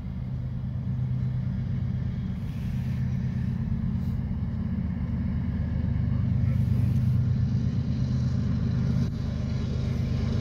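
An engine running steadily, a low drone that grows slightly louder.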